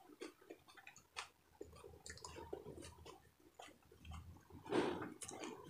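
A person chewing food close to the microphone, with many small sharp clicks from the mouth. A louder, brief burst of noise comes about five seconds in.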